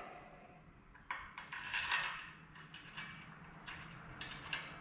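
Small metal clicks and clinks, irregular and about a second or less apart, of bolts being handled and started by hand into a throttle body on an aluminium intake manifold.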